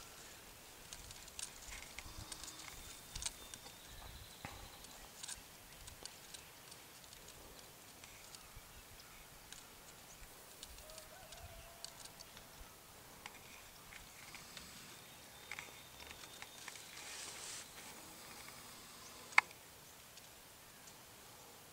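Quiet outdoor ambience with faint rustles and scattered small clicks from a handheld camcorder being held and shifted. One sharp click stands out about 19 seconds in.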